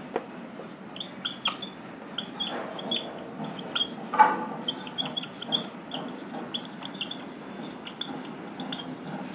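Marker pen writing on a whiteboard: many short, high squeaks with the strokes of handwriting, over a faint scratching of the tip.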